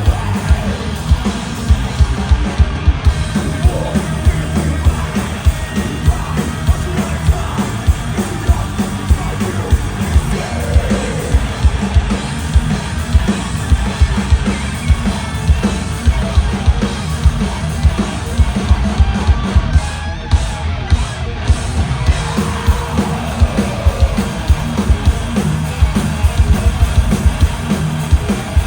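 Thrash metal band playing live at full volume: fast, pounding drum kit, heavy distorted guitars and yelled vocals, recorded from the crowd.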